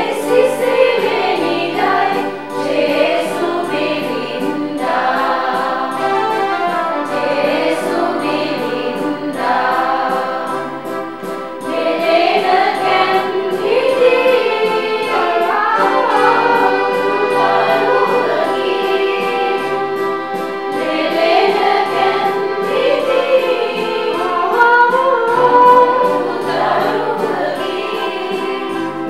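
Mixed choir of men and women singing a Christmas carol together.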